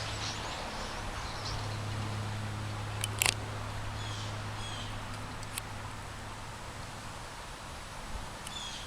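A large flock of migrating birds calling faintly: short runs of high, descending chirps over a steady outdoor hiss and low hum, with a couple of sharp clicks about three seconds in.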